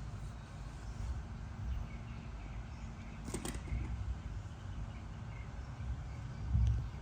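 Outdoor ambience: a steady low rumble with faint high chirps, and one short sharp click about three and a half seconds in.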